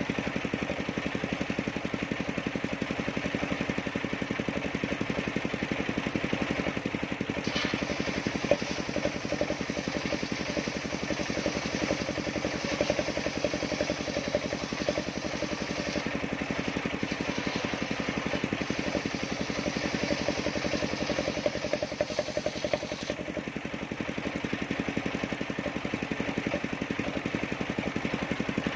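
Engine of a circular sawmill running steadily, driving the large saw blade. A higher hiss joins from about eight seconds in until about twenty-three seconds, as the blade cuts through the wood.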